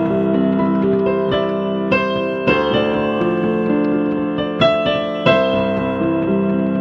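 Solo piano playing a slow, gentle piece: single notes and chords struck every half second to two seconds and left to ring into one another.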